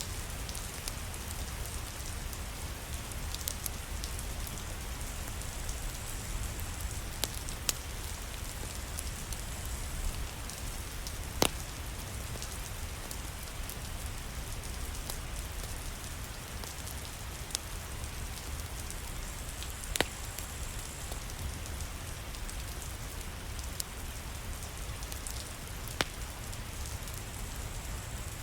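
Steady rain falling, with a low rumble underneath and a few sharp crackles from a wood fire, the loudest a little before the middle, about two-thirds through and near the end.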